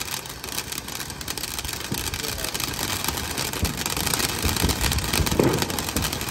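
Several ground fountain fireworks spraying sparks: a steady hiss with dense crackling, a little louder after about two seconds.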